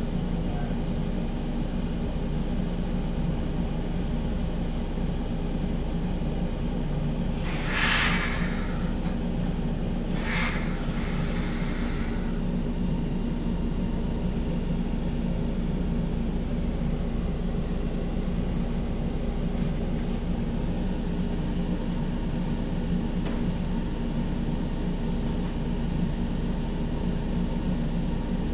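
Stationary Kotoden 1200-series electric train's onboard equipment humming steadily, with two short hisses about 8 and 10 seconds in.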